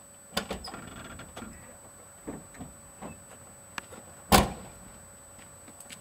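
Door of a 1990 Nissan Hardbody pickup slammed shut about four seconds in, after a few scattered clicks and knocks.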